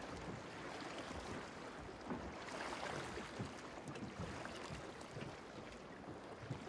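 Sea ambience at night: a steady wash of water and wind, with soft low knocks of water lapping.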